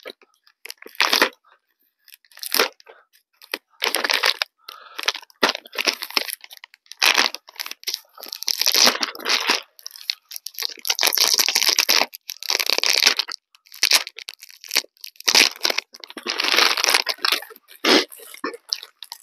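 Plastic wrapping being torn and crumpled off a rifle by hand, in a string of short crinkling, tearing bursts, each under a second or so, with brief gaps between them.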